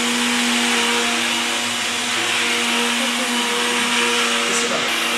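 Electric countertop blender running at a steady speed, churning yogurt into lassi.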